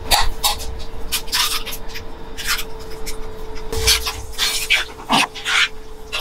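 Spaghetti being tossed and stirred with metal tongs in a frying pan with egg and cheese carbonara sauce: a run of short, wet swishing and scraping strokes. A steady hum runs underneath.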